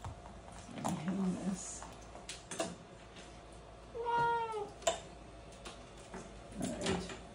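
A cat gives one short meow, falling in pitch, about four seconds in, while held in a wrap with its skin pinched up for a fluid needle. A few faint handling clicks sound around it.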